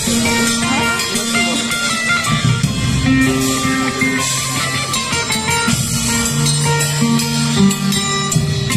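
Live music from a plucked long-necked string instrument playing a melody over held bass notes, with some percussion.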